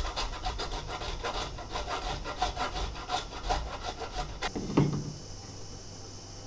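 Block of hard Pecorino Romano cheese scraped back and forth over a fine metal rasp grater into a wooden bowl, in repeated rasping strokes. The grating stops about four and a half seconds in and is followed by one knock.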